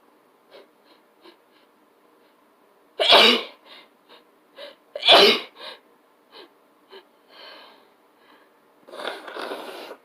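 A person sneezing twice, about three and five seconds in, with short, faint catches of breath before and between the sneezes. Near the end there is a softer, noisy sound about a second long.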